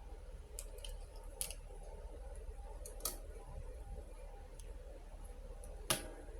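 Small plastic miniature toy kitchen pieces clicking and tapping as they are handled, with a few separate light clicks and the sharpest one near the end, over a faint steady hum.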